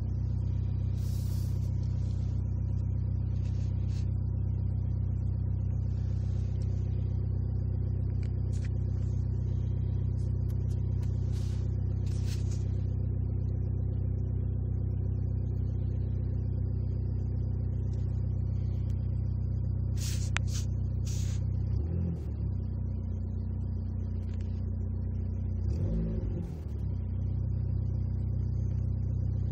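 Dodge SRT-4's turbocharged 2.4-litre four-cylinder idling through a 3-inch exhaust, heard from inside the cabin as a steady low drone. The note wavers briefly twice in the last third.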